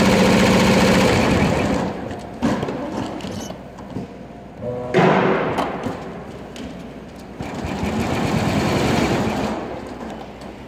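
Multi-head 9-needle embroidery machine stitching at speed, a fast, even clatter of needles and take-up levers. About two seconds in it falls much quieter, with a few sharp knocks about two and a half and five seconds in. It swells again from about seven and a half seconds and fades near the end.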